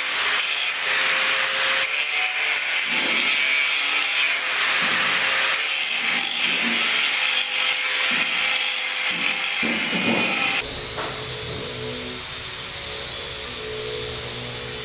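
Building-site tool noise: a harsh, rasping cutting sound like sawing, which changes abruptly about ten and a half seconds in to a duller, lower steady noise.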